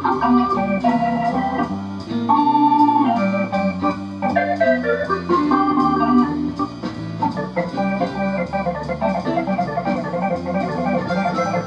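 A piece of instrumental music with sustained keyboard-like notes and chords, played through a TPA3122D2 class D amplifier kit into a loudspeaker as a listening test of the amplifier.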